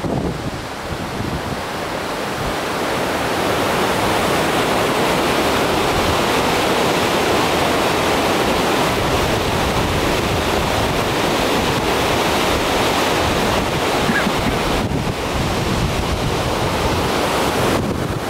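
Steady rushing roar of mountain waterfalls pouring over rock, with wind buffeting the microphone. It drops briefly twice in the last few seconds.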